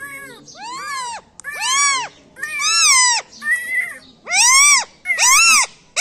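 Rose-ringed parakeet mimicking a cat's meow, about six loud meows in a row, each rising then falling in pitch.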